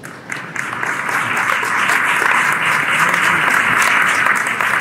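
Audience applauding, with many hands clapping together; it starts suddenly and holds steady.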